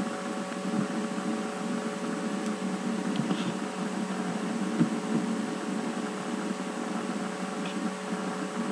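Steady background hum and hiss with several constant tones, like a computer fan or electrical hum in a small room, with one faint knock about five seconds in.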